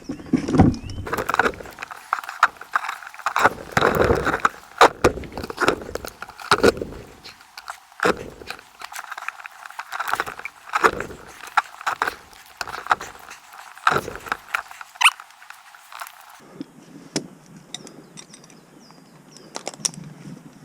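Climbing spikes stabbing and scraping into a Leylandii trunk, with rustling foliage and clinking climbing gear. The sharp knocks come thick and irregular for most of the time and thin out toward the end.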